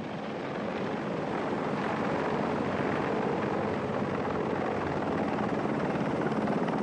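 Lockheed AH-56 Cheyenne compound helicopter flying low past, its rotor and engine making a steady noise that grows a little louder over the first couple of seconds.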